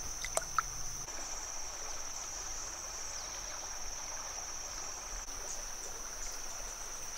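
Insects shrilling in one steady, high-pitched drone, with a few faint clicks in the first second.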